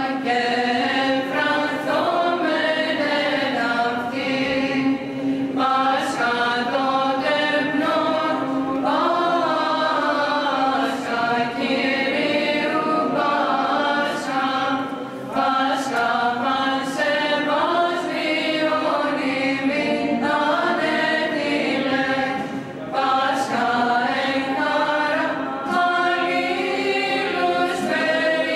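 A small women's choir singing Byzantine chant: a melody line moving over a steady held drone note (the ison), with only brief pauses between phrases.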